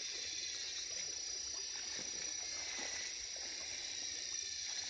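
Steady chorus of insects in the marsh vegetation: a constant high-pitched buzz.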